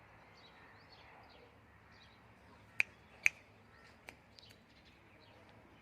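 Small birds chirping faintly and often. About three seconds in come two sharp clicks half a second apart, then a couple of lighter ticks.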